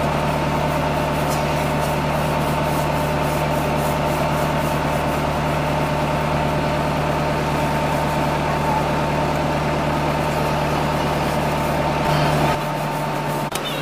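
Tubewell pump running with a steady low hum, water pouring from its outlet pipe into the concrete tank; the low part of the hum falls away near the end.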